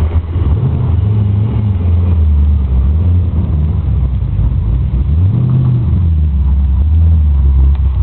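Twin-turbocharged Ford Mustang engine running hard and loud. Its deep note rises and falls in pitch about a second in and again about five seconds in.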